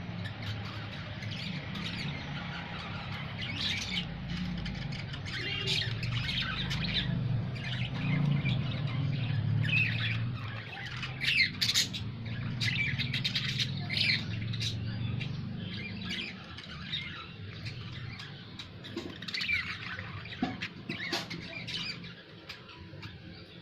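Fischer's lovebirds squawking and chirping in many short, sharp calls, busiest in the middle, over a low steady hum.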